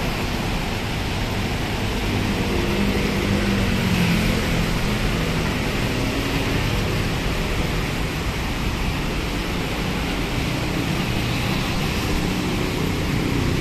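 Steady road traffic: cars and motorcycles passing on wet asphalt, a continuous hiss of tyres with engine noise under it. A passing vehicle's engine hum stands out a few seconds in and again near the end.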